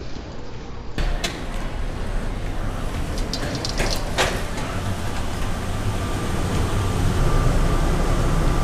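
Airport people-mover shuttle train: a steady low rumble and hum that slowly grows louder, with a few sharp clicks and knocks in the first half and a faint steady tone near the end.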